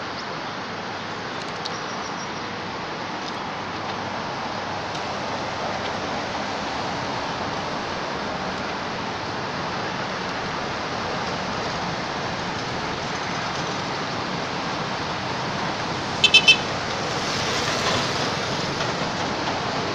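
Steady road traffic noise from vehicles passing on the road. About sixteen seconds in, three quick high beeps cut through, and a vehicle then passes close, louder for a couple of seconds near the end.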